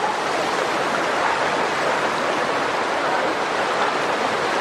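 Floodwater rushing along a flooded street: a steady rush of running water.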